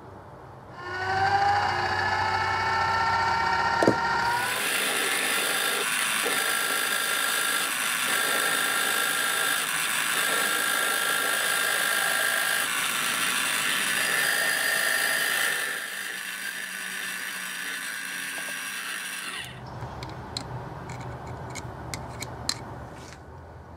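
Benchtop milling machine's spindle motor spinning up with a rising whine, then a 13/64-inch twist drill cutting through a mild steel arbor, a steady whirring run that ends about three-quarters of the way through. A few light metallic clicks follow near the end.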